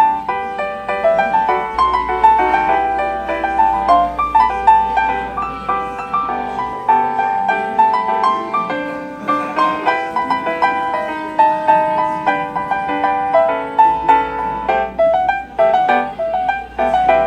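Gentle background music led by piano, playing a light, flowing melody.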